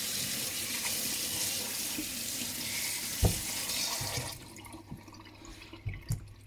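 Tap water running into a sink as a whetstone is flushed clean of flattening slurry. The water shuts off about four seconds in, with a single knock shortly before, and a few light clicks follow.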